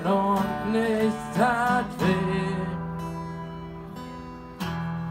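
Live acoustic guitar and a man's singing voice: a last sung phrase over the guitar for about two seconds, then the guitar alone, with a strummed chord about two seconds in and another near the end, each left to ring out and fade.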